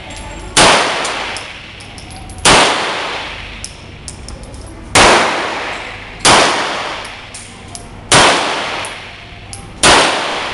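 Beretta M92F 9×19 mm pistol fired six times at an unhurried pace, one to two and a half seconds between shots, each shot trailing off in a long echoing decay.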